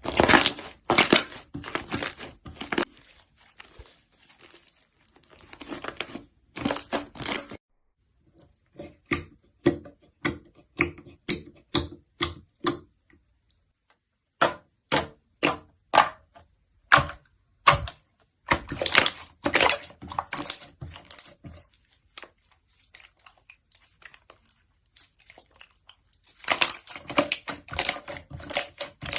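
Slime being squeezed and pressed by hand, giving clusters of sharp clicks and crackles, dense at times and single snaps at others, with short quiet gaps between the handfuls.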